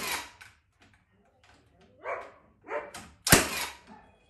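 Milwaukee framing nailer driving nails into timber studs: a sharp shot right at the start and a louder one about three seconds in, with quieter handling knocks between.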